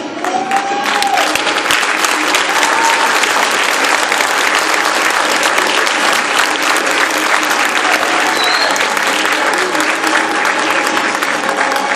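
Audience applauding loudly, the clapping swelling about half a second in and holding steady, with music playing underneath.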